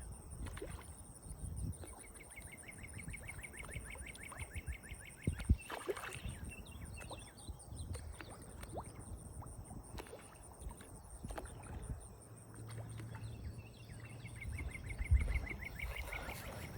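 Faint outdoor pond-side ambience: wind rumbling on the microphone, a steady high insect trill, and repeated rapid pulsed insect calls. A few soft knocks come through, the loudest about six seconds in.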